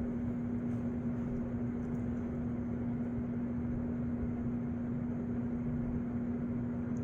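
A steady, unchanging hum with one constant tone over a low rumble.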